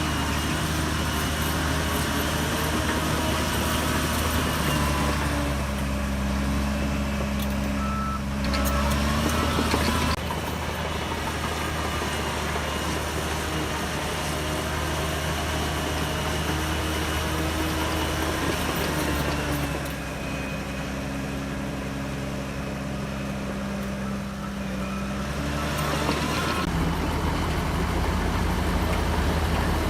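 Shantui DH17C3 bulldozer's diesel engine working under load as it pushes soil, its note shifting and changing in loudness a few times. A short beeping tone is heard about eight seconds in.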